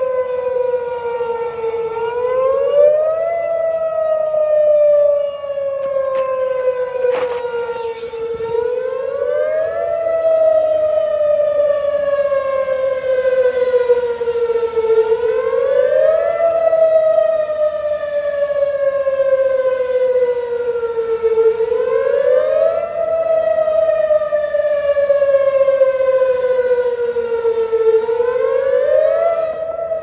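Whelen WPS2810 electronic outdoor warning siren sounding its wail signal in a siren test. The tone climbs quickly, then sinks slowly, repeating about every six and a half seconds.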